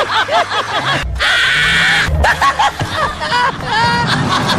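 Several voices laughing hard together in quick rising-and-falling peals. About a second in, a shrill, sustained squeal lasts about a second. The laughter cuts off suddenly at the end.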